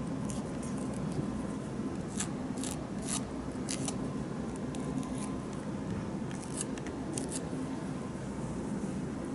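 Emery board filing fingernails with its coarse dark side: short strokes at uneven intervals, each drawn one way only, shaping the nails to a rounded edge.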